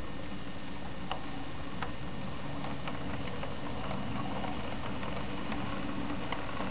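HO scale model train rolling slowly past: a steady hum from the Southern SW9 locomotive and the cars' wheels on the track, with a sharp click now and then as wheels cross rail joints.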